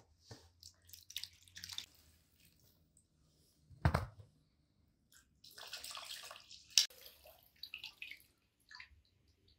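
Water splashing and dripping during food preparation, in short irregular bursts. There is a loud knock about four seconds in, and a longer splash around six seconds that ends in a sharp click.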